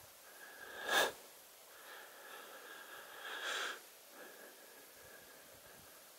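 A person breathing close to the microphone: a sharp sniff or exhale about a second in and a longer breath near the middle, over faint steady background noise.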